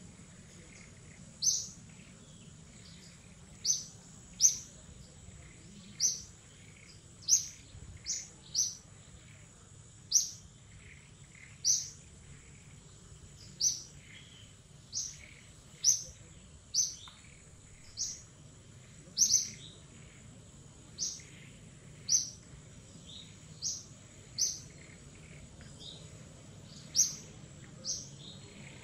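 A bird repeating a short, sharp, high chirp every second or two, each call a quick downward sweep.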